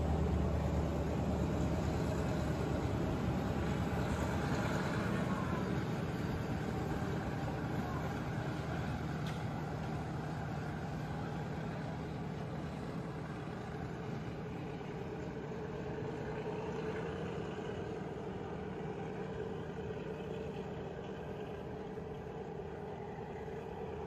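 Diesel train heard from on board: a steady engine hum that slowly grows quieter.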